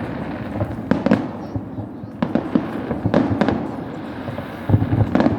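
Fireworks salute exploding: a rapid, irregular run of booming bursts and crackles, with a thicker cluster of bangs near the end.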